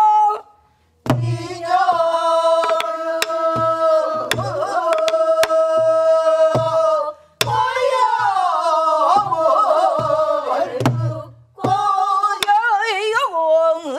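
Pansori singing: a woman's voice holding long, drawn-out notes that bend and waver in pitch, over slow strokes on a buk barrel drum, low thuds from the drumhead and sharp clicks of a stick on the drum. Other voices come in near the end as the class sings the line back.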